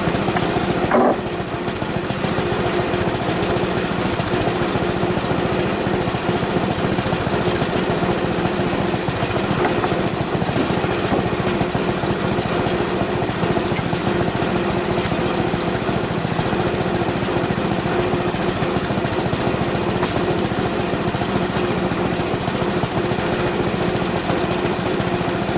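Small gasoline engine of a Frontier OS23 portable bandsaw mill, starting up abruptly and then running steadily at a constant speed.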